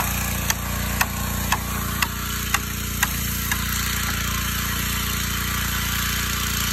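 Gas-powered pressure washer running steadily, its jet hissing onto red clay, with hammer blows on a wooden form stake about twice a second that stop about halfway through.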